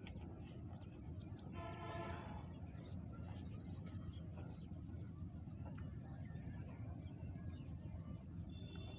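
A steady, faint, low outdoor rumble with short, high bird chirps about a second and a half in and again about four and a half seconds in. A brief held call sounds around two seconds in.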